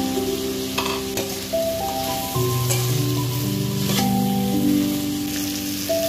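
Diced vegetables sizzling in a hot pan as they are stir-fried, with a few sharp scrapes from the stirring. Slow background music with long held notes plays throughout.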